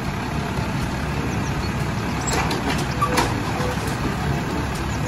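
Side-loading garbage truck's engine running steadily while its lift arm raises a wheelie bin and tips it into the hopper, with a few knocks and clatter a little past halfway through.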